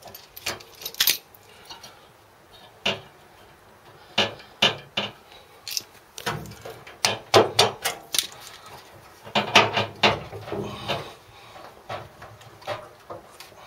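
Screwdrivers clanking and scraping against metal while levering a stiff washing-machine heating element out of its rubber seal in the tub: irregular knocks and clicks, some in quick clusters.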